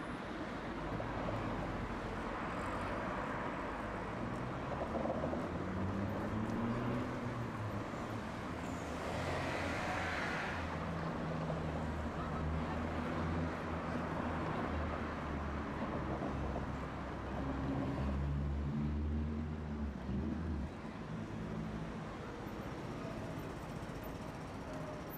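Road traffic at a city intersection: car and van engines running as vehicles pass and pull away, with a low engine hum that cuts off suddenly near the end.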